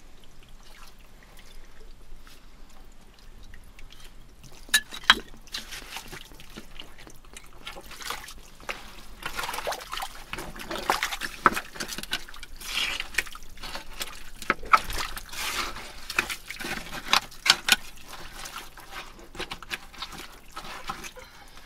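Water trickling and sloshing in the wet muck of a flooded privy pit as bottles are worked out of it, broken by a few sharp clicks.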